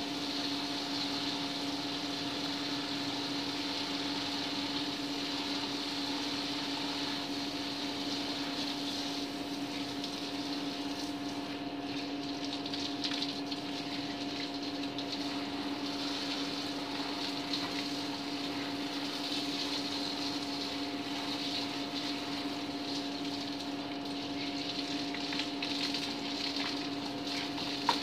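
A water pump running with a steady two-tone hum over a hiss of water flowing. Near the end there is a brief knock.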